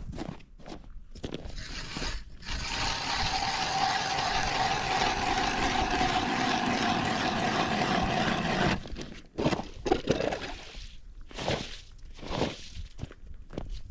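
Ice auger drilling a fishing hole through reservoir ice: a steady cutting noise from about two seconds in until about nine seconds, then several short scrapes and knocks.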